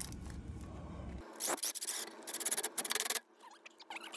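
Aluminium foil tape being pulled off its roll and torn: a short rasp about a second and a half in, then a quick crackling rip lasting nearly a second.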